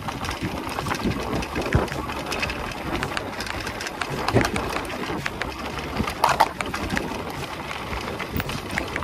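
Wind buffeting the microphone over a steady rumble, with frequent small clicks and rattles, as heard while riding a mountain bike over a rough track.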